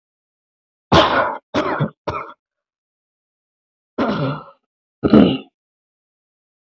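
A person coughing: three coughs in quick succession about a second in, then two more single coughs around four and five seconds in.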